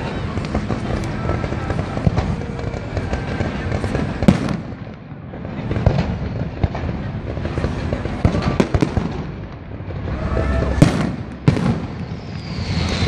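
Fireworks display going off: a quick, irregular run of pops and crackles from low-launched fireworks, with sharper bangs about four seconds in and again around eleven seconds, and a falling whistle near the end.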